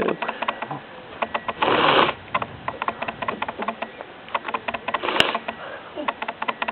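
A person sniffing twice, short rushes of breath through the nose about two seconds in and again about five seconds in, while working up to a sneeze. Rapid faint clicking runs underneath.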